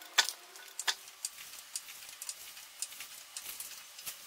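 Arcan 3-ton aluminium floor jack being pumped to lift the front of a car: a run of light, irregular clicks from the handle and pump, the sharpest two within the first second.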